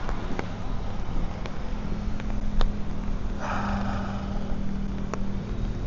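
Street traffic: a vehicle engine's steady hum, with a brief hiss about three and a half seconds in and a few sharp ticks.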